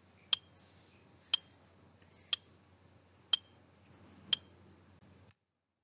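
Countdown-timer sound effect: five sharp clock ticks, one a second.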